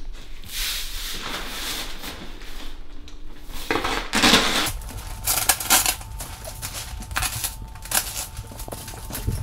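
Synthetic underlayment sheet rustling and crinkling as it is unrolled across a countertop and pulled flat. There are louder crackles from about four seconds in.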